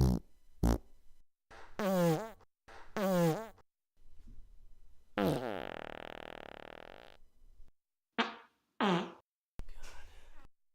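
A string of about eight farts, short pitched blasts with swooping pitch. A long drawn-out one of about two seconds, falling in pitch, comes about halfway through.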